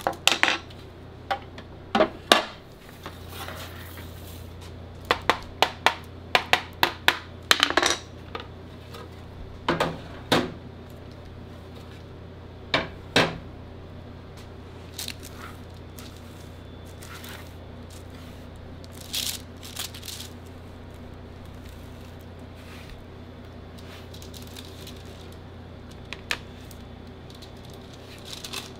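Clear plastic chocolate molds knocked against a metal sheet pan and chocolate bars clattering down onto it as they are turned out: a quick run of sharp knocks in the first half, then a few scattered taps.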